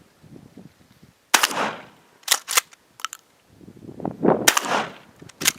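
Two 12-gauge shotgun blasts from a Winchester Model 1300 Featherweight pump-action firing slugs, about three seconds apart, each followed a moment later by the quick double clack of the slide being pumped to chamber the next round.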